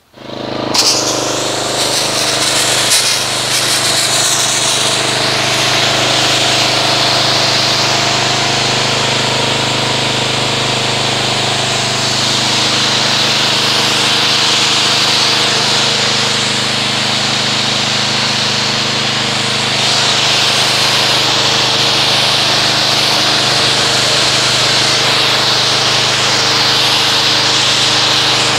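Pressure washer coming on and then running steadily, its motor and pump humming under the hiss of the water jet rinsing soap foam off a car's paintwork.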